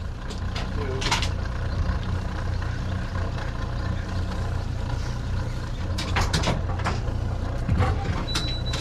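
Boat outboard motors idling with a steady low hum, with a few knocks of gear being handled on the boat and a brief thin high beep near the end.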